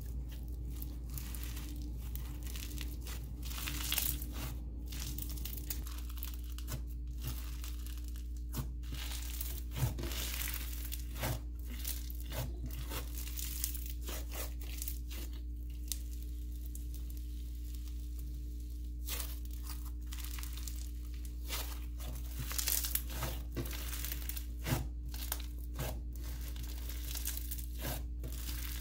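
Snow fizz slime being stretched, squished and pressed by hand, giving a run of crackling, tearing pops as the dense, rippy slime pulls apart. A steady low hum runs underneath.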